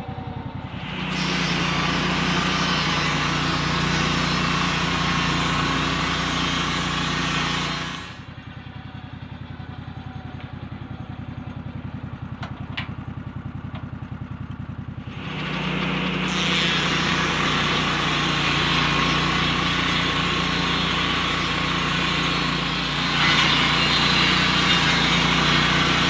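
Lucas Mill portable swing-blade sawmill, its petrol engine revving up about a second in as the circular blade cuts along the log, dropping back to idle at about eight seconds, then revving up and cutting again from about fifteen seconds, loudest near the end.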